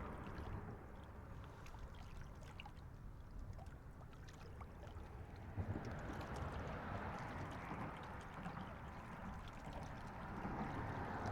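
Lake water lapping steadily against the shoreline, with a few faint small clicks.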